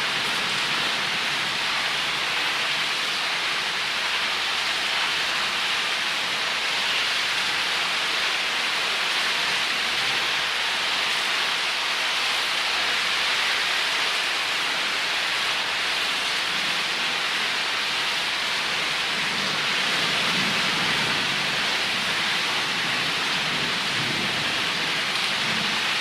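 Thunderstorm: steady heavy rain, with a low rumble of thunder coming in for the last several seconds.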